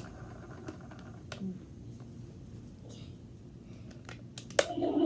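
Toy toilet flush game being handled: a few scattered plastic clicks, with a louder pair of clacks near the end.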